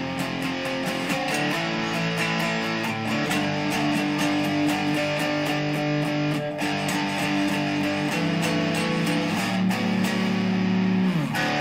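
Gibson Les Paul electric guitar played through a Digitech RP55 multi-effects processor: sustained chords and ringing notes changing every second or so. Just before the end a note slides down in pitch and the playing stops.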